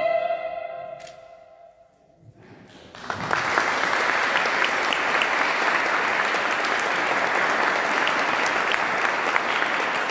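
A soprano's final held note fading out, a second or two of near silence, then an audience applauding steadily from about three seconds in.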